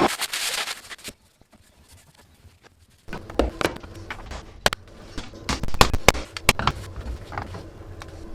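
Rubbing or rasping on a tool, running on for about a second and then stopping. After a pause, scattered sharp knocks and clicks of tool handling over a low hum, the loudest a few seconds in.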